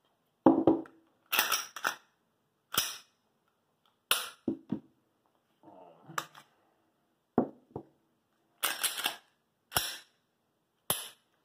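Glock pistols being handled, with the slides and frames coming apart: about a dozen sharp clacks and clicks at irregular spacing, several in quick pairs.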